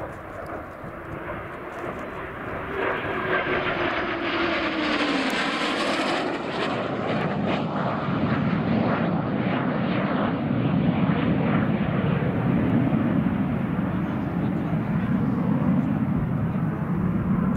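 Low-flying military jet passing close: its engine noise builds, a falling tone sweeps down as it goes by about five seconds in, and a heavy steady rumble follows as it goes away.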